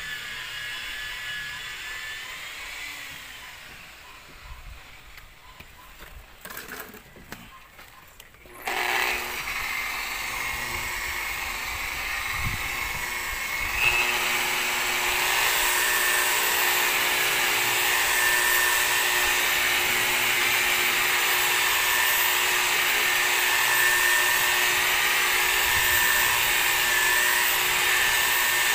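Electric rotary polisher with a foam pad starting up about nine seconds in, getting louder about halfway and then running with a steady whine as it buffs rubbing compound into the truck's paint.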